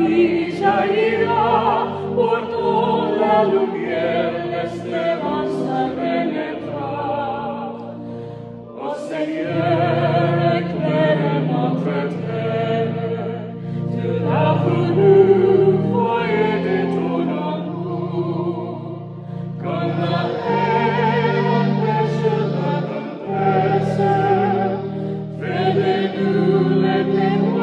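A church congregation singing a hymn together over held accompaniment chords, the voices moving in phrases with short breaths between them.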